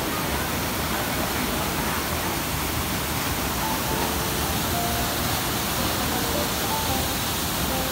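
Waterfall rushing steadily over rocks into a pool.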